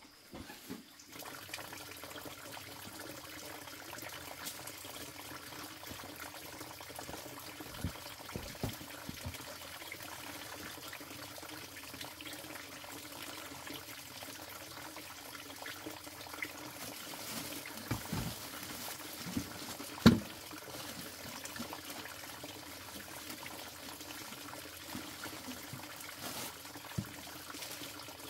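Steady trickle of running water, with a few light knocks and one sharper knock about twenty seconds in.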